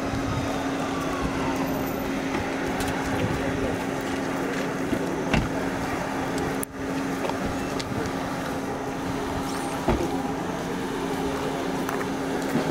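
Car engine idling with a steady hum, and two short knocks about five and ten seconds in.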